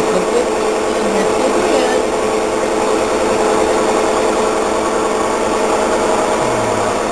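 A machine motor running with a steady droning hum and whine that neither rises nor falls.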